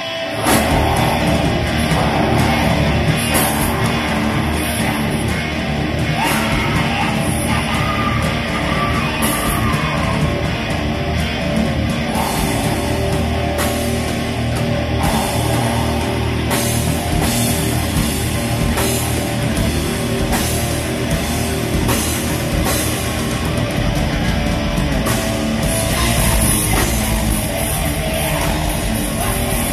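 Black metal band playing live at full volume: distorted electric guitars, bass and a drum kit. The full band crashes in about half a second in, after guitar alone, and keeps going without a break.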